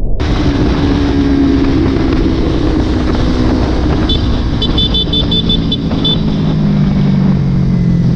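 Sport motorcycle engine running at a steady cruise, heard from on the bike with wind rushing over the microphone; the engine note falls slowly and settles lower about two thirds of the way in. A quick run of short high beeps sounds around the middle.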